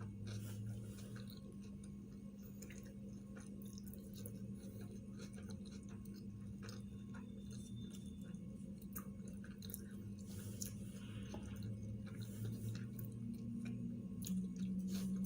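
A person chewing sushi rolls, with scattered small mouth clicks over a steady low hum.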